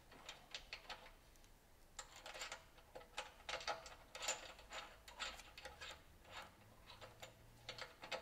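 Quiet, irregular metallic clicks and scrapes from a steel spacer being turned by hand on a bolt in a mower bracket.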